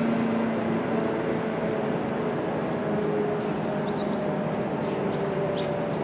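ACA Allertor 125 rotating outdoor warning siren sounding several steady tones together as its horn slowly turns.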